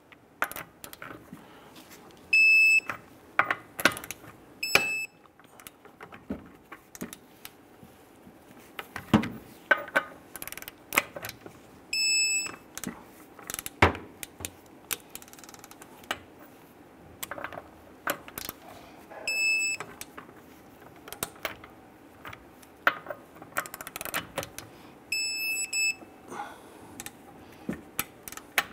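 Torque wrench tightening wheel lug nuts to 110 foot-pounds: ratchet clicks and metal clunks of the socket on the nuts, with a short high beep five times, once per lug nut, as the wrench signals that target torque is reached.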